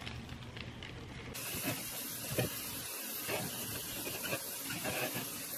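Kitchen faucet running into a stainless-steel sink, setting in suddenly a little over a second in, with a few light knocks.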